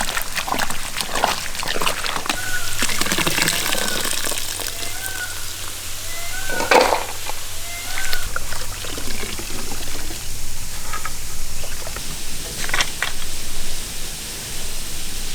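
Hands washing food in a vessel of water, with repeated splashing, sloshing and trickling as it is rinsed. Short chirps, like a bird's, repeat in the background through the first half.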